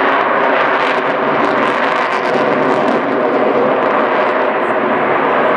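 An F-22 Raptor's twin F119 turbofan jet engines heard in flight: a loud, steady, dense jet noise.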